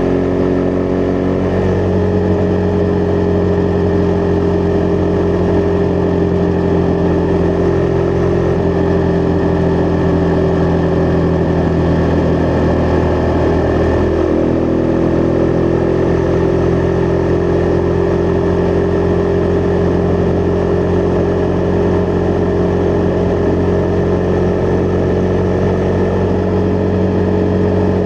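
Husqvarna Vitpilen 401's single-cylinder engine running at steady cruising revs on the road. There is a short break in the note about halfway through, after which the pitch climbs slowly.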